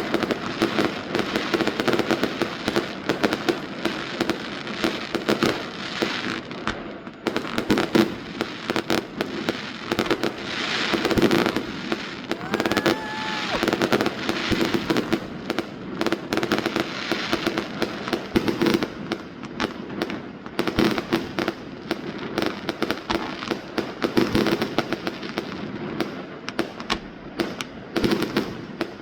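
Fireworks going off without a break: a dense run of bangs and crackles, with louder reports every second or so.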